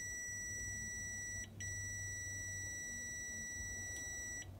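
Kaiweets HT206D clamp meter's continuity beeper giving a loud, steady high-pitched tone with the probe tips shorted together, showing a closed circuit. The tone drops out briefly about one and a half seconds in and again near the end.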